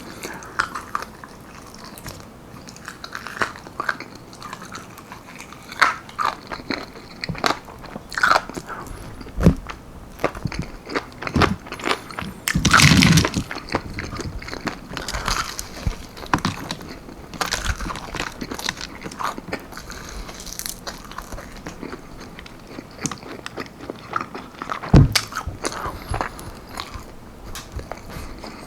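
Close-miked biting and chewing of almond-flour-breaded chicken wings: irregular bites and mouth sounds, with a louder stretch about halfway through and a sharp knock near the end.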